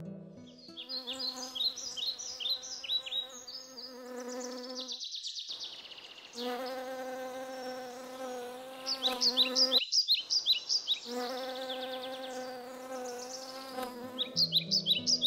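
Honeybee buzzing, a steady droning hum that breaks off twice. Rapid, high, repeated chirps sound over it in two spells.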